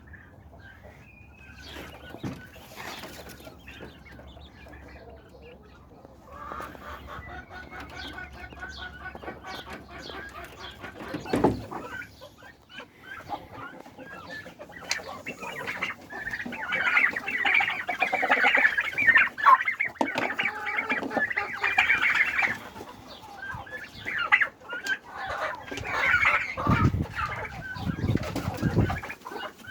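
A flock of domestic chickens clucking and chattering, many birds calling over each other, growing busier and louder toward the middle. A few dull thumps are heard, one near the middle and a couple near the end.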